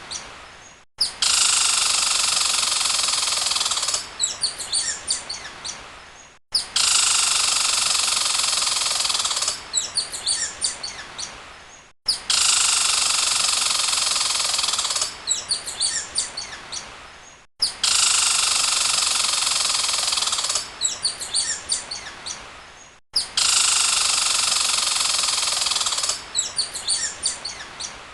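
Birdsong played as a short repeating loop, about every five and a half seconds: each pass starts abruptly with dense steady high trilling, then breaks into a run of separate quick chirps that fade out, followed by a brief dropout before it repeats.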